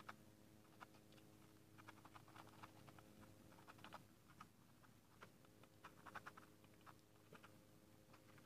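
Muscovy ducklings pecking and dabbling at crumble feed in a plastic dish: faint, rapid, irregular clicking of bills on feed and plastic, coming in quick clusters.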